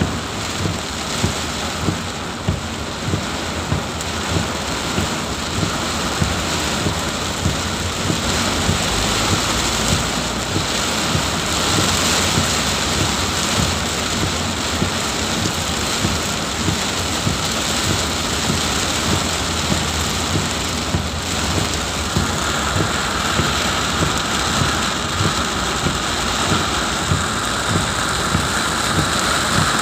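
Heavy tropical downpour, a steady dense hiss of rain, with frequent low thumps about once a second.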